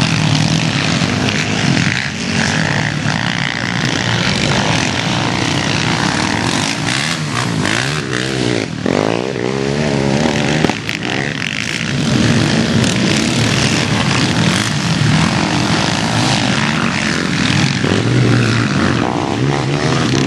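Several racing quad bikes' engines running together, revving up and down; one engine's pitch sweeps up and down sharply about nine seconds in.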